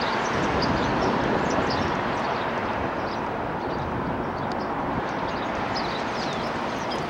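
Steady city street noise: a dense, even traffic rumble, with scattered short high chirps over it.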